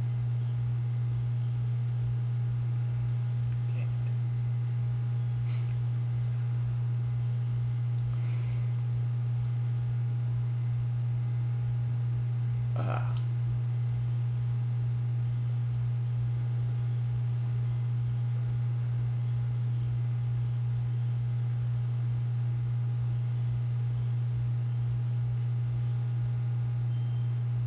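A loud, steady low hum on one constant pitch that never changes. A few faint short sounds rise above it, the clearest about halfway through.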